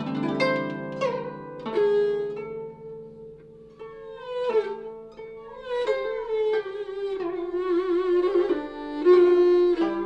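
Guzheng and yehu (coconut-shell fiddle) playing a slow Cantonese melody together: the yehu carries a sustained bowed line with slides and vibrato while plucked guzheng notes ring and fade beneath it.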